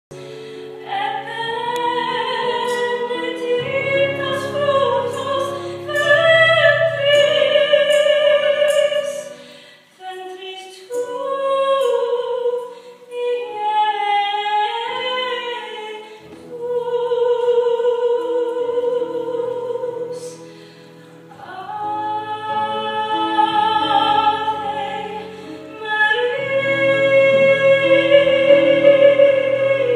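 A woman singing solo in an operatic, classical style with vibrato. She sings in long sustained phrases with short breaks between them, over steady held chords from an accompanying instrument.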